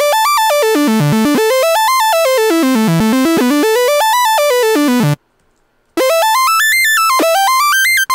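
Arpeggiated synth lead, Logic's 'Super Fat Moog' patch driven by Logic's arpeggiator. Quick notes step up and down over several octaves, about eight a second. The notes break off about five seconds in and start again a moment later, climbing.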